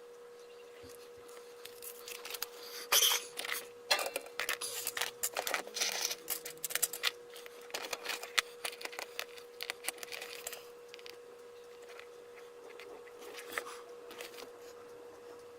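Bursts of scraping, rustling and clicking as small controller parts are handled and cleaned, busiest from about two seconds in to about eleven seconds, over a steady faint hum.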